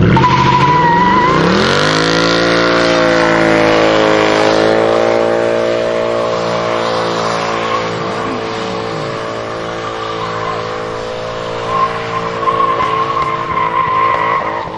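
A Mercedes C-Class AMG sedan's engine revs up sharply over the first two seconds and is then held at high revs while the rear tyres spin in a burnout. The tyres squeal, most clearly near the start and again near the end.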